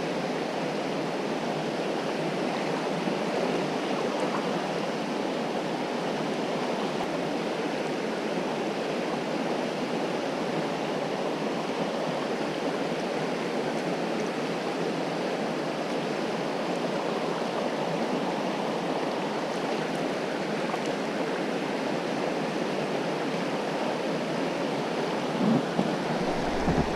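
A fast mountain river running high, rushing steadily over a rocky riffle: an even, unbroken sound of churning water.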